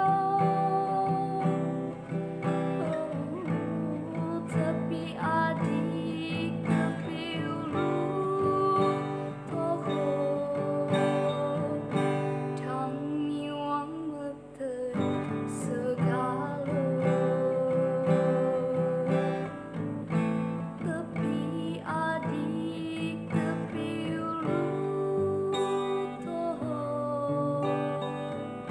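A woman singing a song while accompanying herself on a strummed acoustic guitar.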